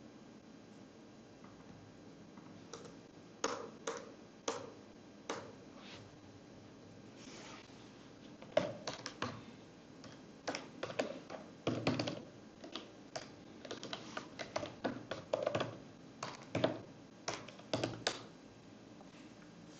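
Typing on a computer keyboard: a few scattered key clicks, then a quicker run of keystrokes that stops near the end.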